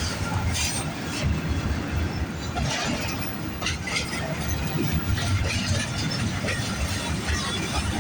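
Freight train cars rolling past at close range: a steady rumble of steel wheels on the rails, broken by a few sharp clanks about three and four seconds in.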